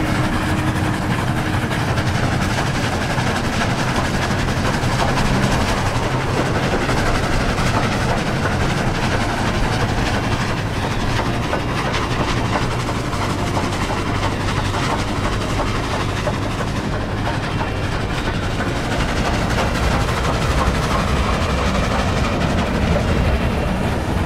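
Steam locomotive hauling passenger coaches along the line, with the train's running and its wheels on the rails heard as a steady noise.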